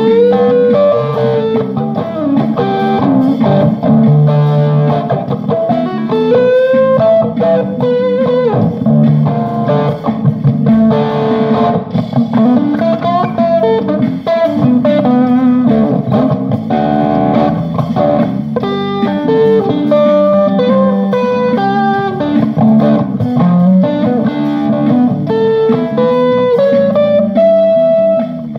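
Guitar being played: single-note melodic lines with bent notes over steady lower notes.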